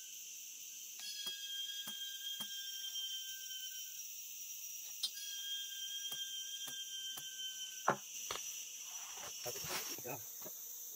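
Insects droning: a steady high hiss, and a thin whistling tone that comes and goes twice, with scattered light clicks and a faint voice near the end.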